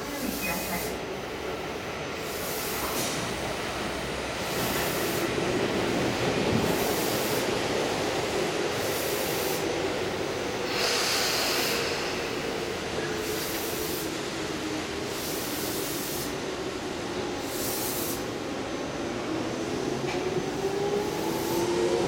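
Tobu 10030-series electric train standing at the platform, then pulling away: a brief hiss about eleven seconds in as the doors shut, and from about fifteen seconds a traction-motor whine rising steadily in pitch as the train accelerates.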